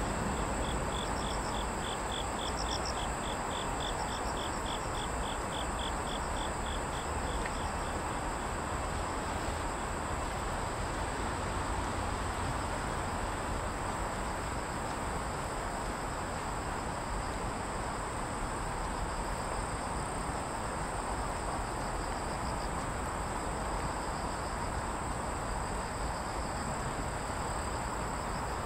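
Crickets and other insects calling in a steady high, continuous chorus, with scattered chirps, over a steady rushing background noise. For the first seven seconds or so, another insect adds a quick pulsed call of about four pulses a second.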